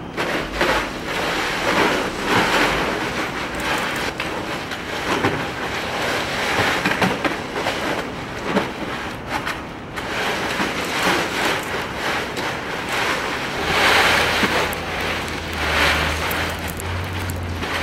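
Ice cubes rustling, crunching and clattering in a plastic wading pool as a polar bear cub rolls, paws and digs through them, rising and falling in uneven swells.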